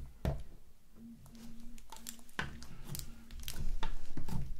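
Long neon-green false fingernails tapping and clicking on a clear plastic bag of slime, with the plastic crinkling under the fingers. A faint low steady hum sits underneath from about a second in.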